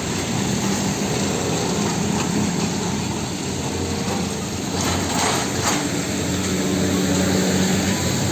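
A small motor whirring steadily with a low hum, with a few faint clicks about five seconds in, then cutting off suddenly.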